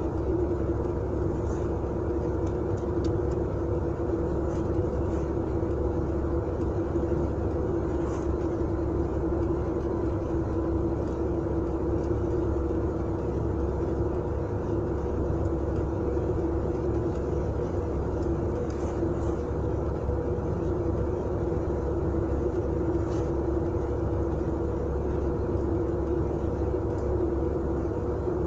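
GAZ-3102 Volga car driving along a road at a steady speed. Engine and road noise make an even drone with a constant hum, and a few faint ticks come through here and there.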